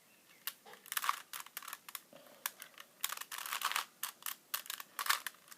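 Plastic Rubik's Cube being turned by hand: rapid clicking and clacking of the layers in quick bursts, starting about half a second in.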